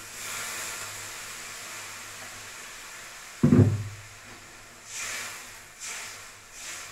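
Water poured into hot fried masala in a steel kadai, hissing and sizzling and slowly dying down. About three and a half seconds in, a loud thud as the plastic water jug is set down on the counter. Then three short swishes of a spatula stirring the thin curry.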